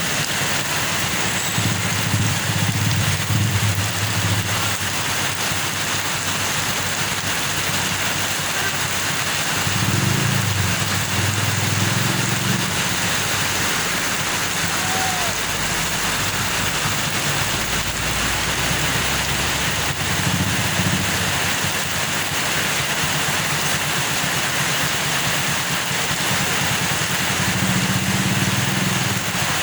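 Roadside traffic: a steady hiss of vehicles going by, with engine rumble swelling as vehicles pass about four times. No horn sounds.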